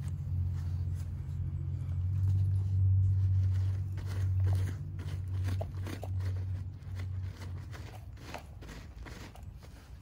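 Gloved hands and a garden trowel digging through loose potting soil in a large pot, making irregular scraping, crunching strokes. Under them a louder low rumble swells over the first few seconds and fades out after about seven seconds.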